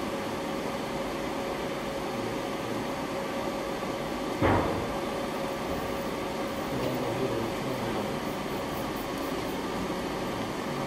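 Steady hum of a Samsung SL-25/1000 CNC lathe's running machinery, with a faint steady tone in it. A single sharp thump stands out about four and a half seconds in.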